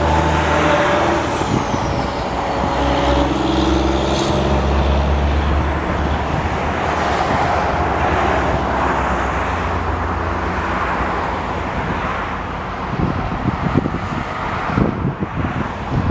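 EMD SD60 diesel-electric locomotive running as it backs up, its 16-cylinder 710 diesel giving a steady low hum. A brief high squeal falls in pitch about a second in, and irregular thumps come near the end.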